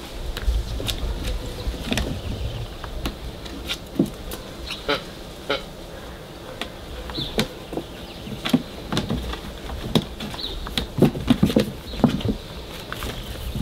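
Weimaraner and Pomeranian puppies playing: scattered taps and clicks of paws and claws on concrete and a hard plastic slide, with short puppy grunts that come thickest about eleven seconds in.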